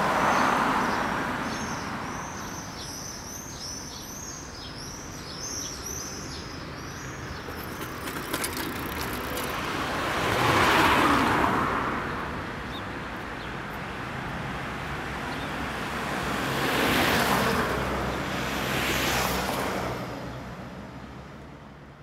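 Street ambience: cars pass by, the traffic noise swelling and fading near the start, about halfway through and twice near the end. A small bird chirps over and over in the first several seconds. The sound fades out at the end.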